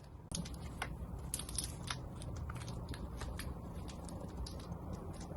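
Close-up crackling and clicking of small parts of a tire plug repair kit being handled, as a plug strip is threaded into the insertion tool, starting about a third of a second in.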